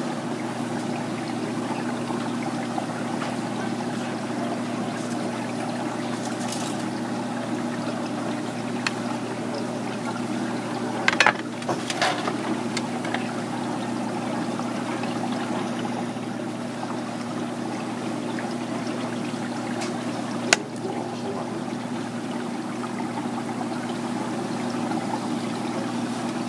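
Steady machine hum with a hiss underneath, and a knife knocking on a plastic cutting board: a quick cluster of knocks around the middle and one sharp knock later.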